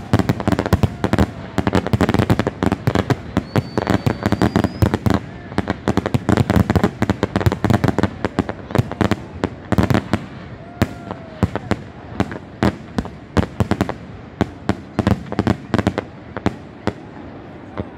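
Fireworks on the banner hung beneath a paper hot-air balloon are going off: a long run of rapid, irregular firecracker pops, many a second and without a break.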